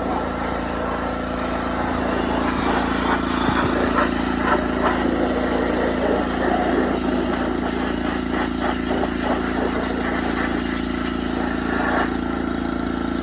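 Small gas engine of a pressure washer running steadily, with the hiss of the spray and scattered short knocks.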